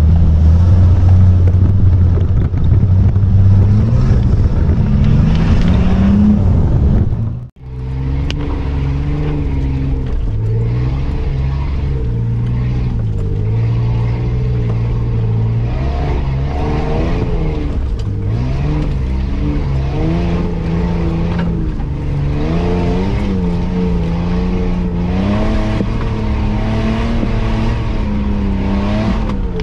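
Off-road 4x4 engine heard from inside the cab while driving a muddy trail, revving up and down with the throttle. The sound cuts off abruptly about seven seconds in. A second 4x4's engine then runs on, its pitch rising and falling as it works along the track.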